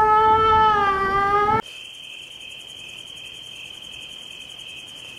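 A young man's long held cry at a steady, slightly wavering pitch, which cuts off abruptly about a second and a half in. Quieter steady cricket chirping follows, used as the 'awkward silence' crickets.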